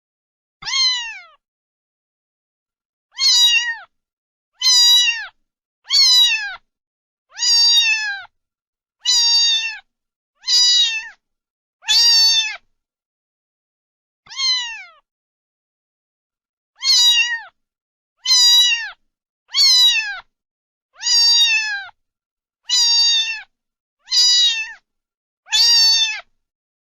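A cat meowing over and over: about sixteen short, high meows, each dropping in pitch at its end, separated by dead silence, with longer pauses about a third of the way in and again a little past halfway.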